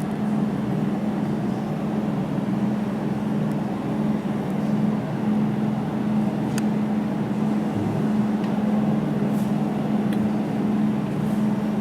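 Jewelry laser welding machine running with a steady hum, with a few faint sharp ticks scattered through.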